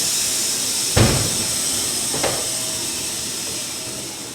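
Sawmill machinery running with a steady high hiss, a heavy thump about a second in and a lighter knock about two seconds in, the hiss fading toward the end.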